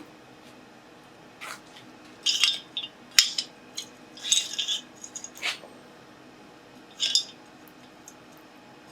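Steel tools and stock clinking and clattering against one another as they are picked up and set down on the bench or anvil: a handful of short, irregular metal clinks, some with a brief ring.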